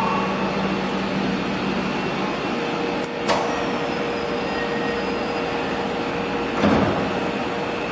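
Keisei 3000-series commuter train standing at an underground platform, its passenger doors closing before departure: a steady hum throughout, a sharp click with a short falling whine about three seconds in, and a heavier thud near the end as the doors shut.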